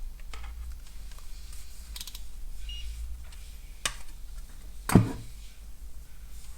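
Small clicks and taps of multimeter probes and tools being handled on a workbench during a continuity test of a key fob's circuit board, with a louder knock about five seconds in. A short, faint high beep sounds near the middle, over a low steady hum.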